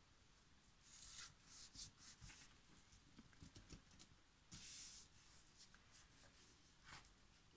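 Faint rubbing and swishing of hands smoothing a sheet of scrapbook paper flat onto a cardboard base, in short strokes with a longer swish about halfway through.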